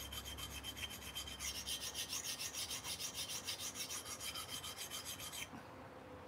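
Steel knife blade scraped back and forth on a coarse handheld sharpening stone in quick, even strokes, about five a second, grinding a new tip onto a rounded-over blade. The strokes stop for a moment near the end.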